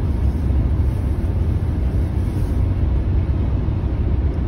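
Steady low rumble of road and engine noise inside the cabin of a car driving on a highway.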